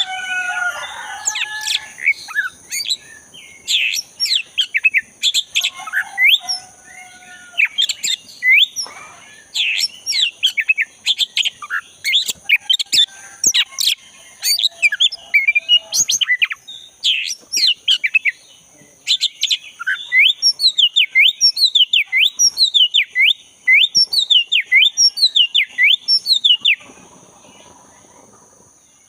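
Black-breasted oriental magpie-robin (kacer dada hitam) singing in full song: a fast, varied run of sharp sweeping whistled notes that stops about two seconds before the end. A steady high-pitched drone runs underneath.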